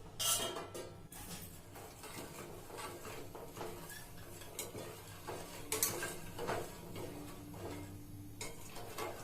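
Metal kitchen utensils clinking and knocking: a spoon against a steel vessel. There is a sharp clank right at the start, lighter scrapes and taps after it, and a few louder knocks a little past the middle.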